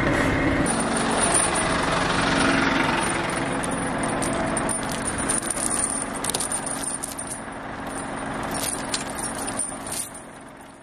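Timber truck's diesel engine idling steadily, with metal snow chains clinking and rattling in the second half as they are handled and fitted onto a tyre.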